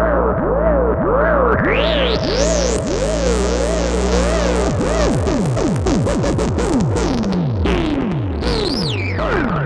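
Novation Bass Station 2 analogue synthesizer droning with its envelope retriggering in a loop, making repeated quick pitch swoops about two or three times a second over a steady low tone, through a tape-echo effect. A high whistling sweep rises about two seconds in, a noisy wash fills the middle, and another high sweep falls near the end.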